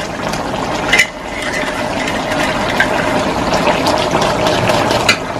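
A stew of pork and vegetables simmering in a metal wok while a utensil stirs it, scraping and clicking against the pan a few times.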